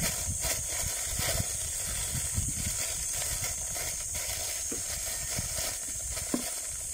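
Clear plastic bag crinkling now and then as hands turn it over and open it, over a steady high hiss and an uneven low rumble.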